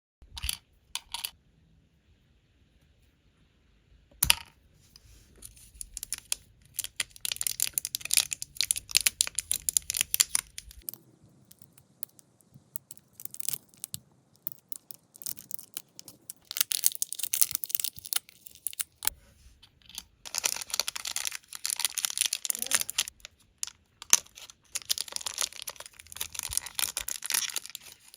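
Plastic packaging torn open and crinkled by hand, a dense crackle of small clicks and rustles that comes in several bursts with short pauses.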